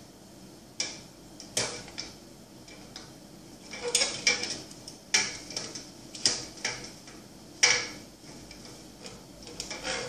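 Ceiling fan's round light cover being worked by hand against its ceiling fixture: a run of irregular sharp clicks and short scrapes, loudest about four and eight seconds in.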